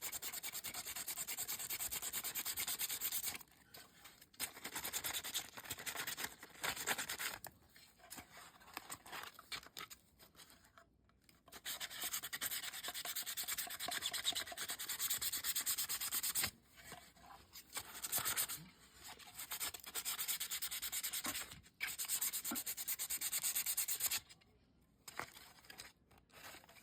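Sandpaper rubbing by hand over a small RC crawler body in quick short strokes. It comes in spells with several brief pauses.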